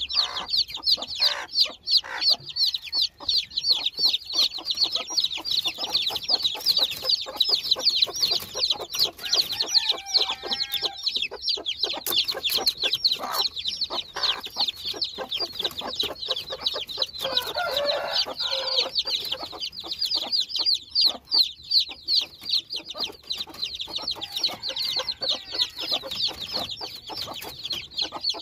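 A brood of newly hatched chicks peeping rapidly and without a break, a dense chorus of high cheeps. The mother hen clucks twice among them, once about ten seconds in and once a little past the middle.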